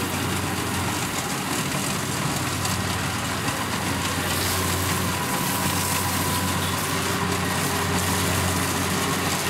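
Kubota DC-70 Plus rice combine harvester's diesel engine running steadily as the machine cuts rice.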